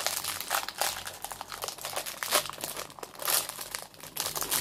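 A chocolate bar's wrapper crinkling in the hands as it is pulled open, a quick, irregular run of crackles.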